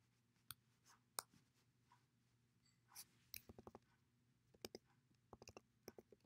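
Faint computer keyboard keystrokes and mouse clicks: scattered single taps and a few quick runs of clicks over near-silent room tone.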